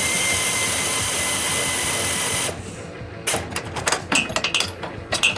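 Power ratchet running a nut down a stud to draw the subframe connector tight against the frame: a steady motor run with a faint falling whine that stops about two and a half seconds in, followed by a string of short clicks.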